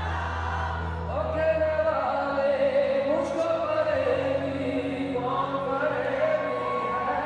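Live concert music with held low keyboard notes and a sung melody that grows stronger about a second in, without drums.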